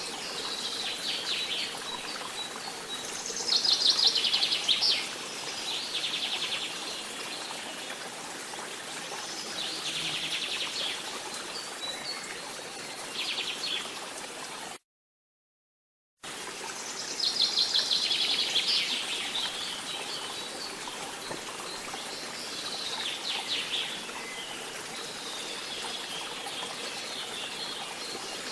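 Tropical forest ambience: birds calling in short, rapid high trills every second or two over a steady background hiss. The sound cuts out completely for about a second and a half midway, then resumes.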